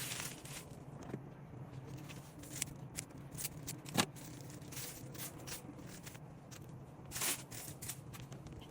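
Hands handling dry craft materials: scattered rustles and light clicks, with one sharper click about four seconds in and a longer rustle a little after seven seconds.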